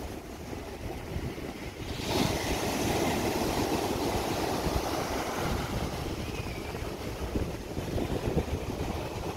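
Surf breaking on a sandy beach: a wave crashes about two seconds in and its rushing wash runs on, slowly easing. A steady low wind rumble on the microphone lies underneath.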